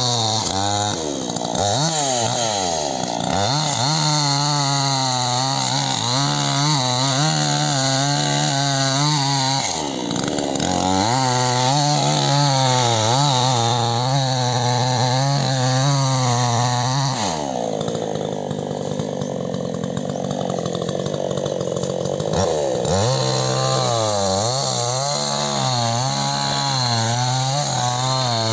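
Two-stroke chainsaw running, its engine note wavering up and down as it is revved. About two-thirds of the way through the revs settle to a lower, steadier note for several seconds, then pick up again.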